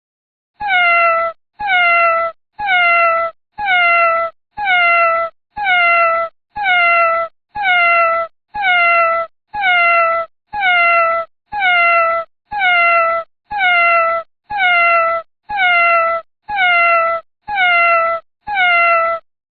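A domestic cat's meow, one short call that dips in pitch at its end, repeated over and over at about one a second, each repeat identical.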